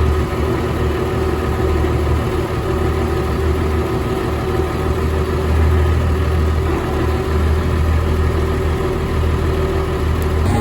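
A vehicle engine running steadily with a low rumble and a constant hum.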